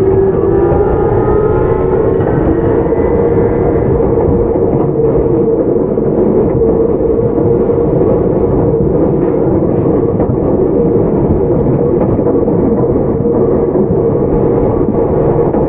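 Tokyu 9020 series electric train running at speed: the faint gliding whine of its Mitsubishi VVVF inverter fades in the first few seconds, leaving a steady rolling noise of wheels on rail with a constant hum.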